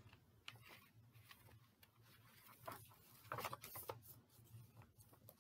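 Faint rustling of a paper product card being handled, a few soft brushes with a cluster a little past the middle, over a low steady room hum.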